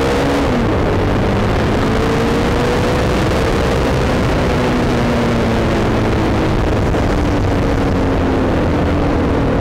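Hyosung GT650's V-twin engine running while the motorcycle is ridden at road speed, with heavy wind noise on the camera microphone. The engine pitch drops about half a second in, then rises and falls gently.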